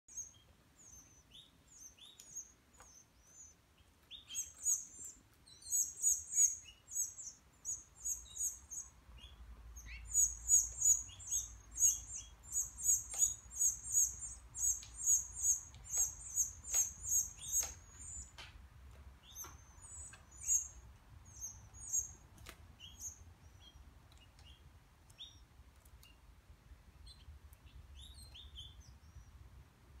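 Canary nestlings begging with rapid, very high-pitched cheeps while a parent feeds them. The cheeps come in quick runs, busiest through the middle and thinning to scattered calls near the end.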